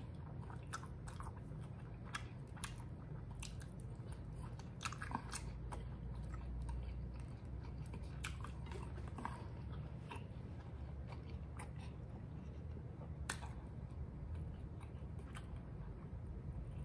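A person chewing a bite of fried egg roll with her mouth closed: soft wet chewing with scattered small crunchy clicks, over a low steady hum.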